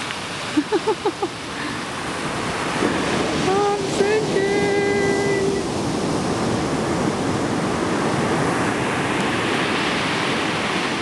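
Ocean surf: waves breaking and washing up over wet sand, a steady rushing wash that grows louder after a couple of seconds. A brief voice with a rising then held note sounds over it about four to five seconds in.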